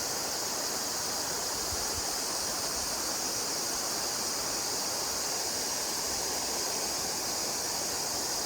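Mountain stream running steadily: an even hiss of flowing water.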